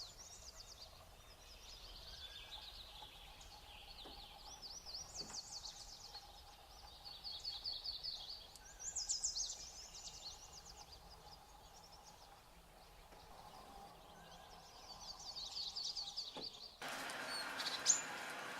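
A flock of small songbirds giving high, rapid trilling calls, several bursts overlapping. Near the end a sudden rush of broad noise sets in, with a sharp click.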